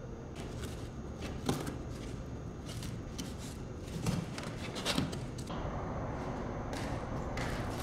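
Rigid extruded-polystyrene foam pieces being handled and fitted together: scraping and rustling, with a few light knocks.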